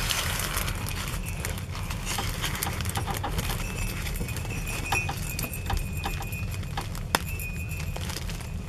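Hands handling craft packaging: a cellophane-wrapped insert crinkling as it slides into a fabric envelope, then fabric and glitter ribbon rustling. Scattered light taps and clicks run through it.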